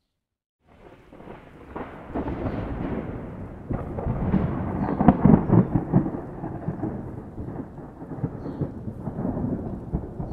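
A roll of thunder. It breaks out of silence about a second in and builds to its loudest near the middle, where sharp cracks break through the rumble, then slowly dies away.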